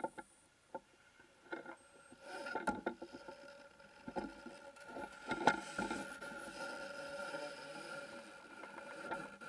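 Underwater camera rig hanging on a line, with a steady electric hum and irregular knocks and scraping as it bumps and shifts in the water, the loudest knock about halfway through.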